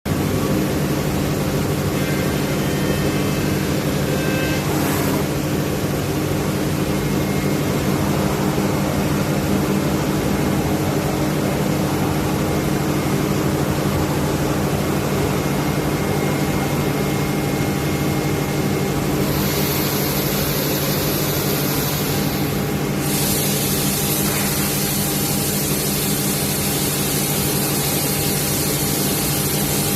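Five-axis CNC wood router running with a steady machine hum. A loud high hiss joins about twenty seconds in, breaks off briefly and then continues.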